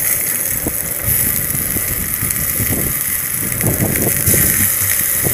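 Oil sizzling on a hot flat iron griddle (tawa) under rings of capsicum and tomato, a steady high hiss, with wind gusting on the microphone.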